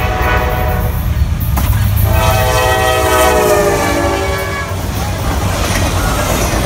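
Diesel freight locomotive's air horn sounding a blast, then a longer one whose pitch drops as the locomotive passes close by. After that, the heavy rumble and rattle of the freight cars rolling past.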